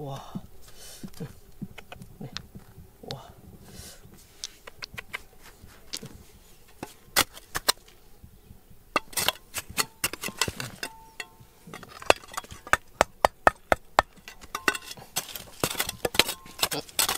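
A run of sharp taps, clicks and scrapes that gets denser and louder about seven seconds in: tools and stones knocking on rock during digging.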